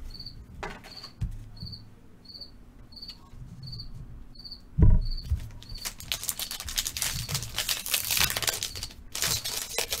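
A cricket chirping steadily, one high chirp about every two-thirds of a second. About five seconds in there is a thump, followed by the crinkling crackle of a foil trading-card pack wrapper being handled and torn open.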